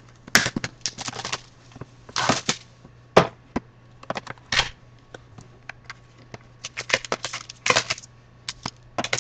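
A sealed box of hockey trading cards being unwrapped and opened by hand: plastic wrap and cardboard handled, making a string of short clicks, crinkles and scrapes with a few longer rustles. A low steady hum runs underneath.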